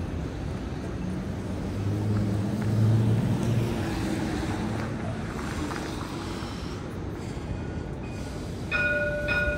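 Street noise with wind on the microphone, and a passing vehicle's low hum that swells and fades about two to four seconds in. A brief steady high tone sounds near the end.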